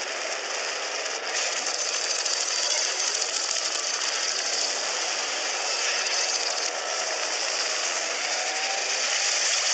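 Cartoon action sound effects played backwards: a steady, rapid mechanical buzzing with no speech.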